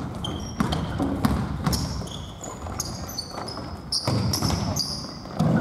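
A basketball bouncing on a hardwood gym floor, several sharp thuds, mixed with short high squeaks of sneakers on the floor as players run, in a large hall.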